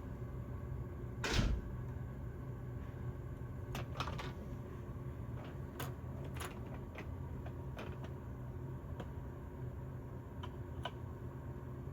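Small hand tools being handled on a workbench during circuit-board soldering work: a dull knock about a second in, then scattered light clicks and taps, over a steady low hum.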